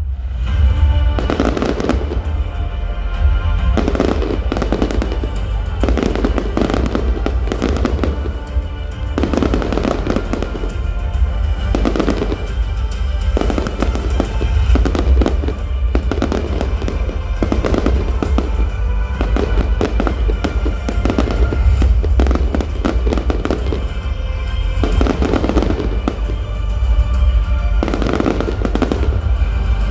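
Fireworks bursting in quick, irregular succession over a music soundtrack, with a steady deep rumble underneath.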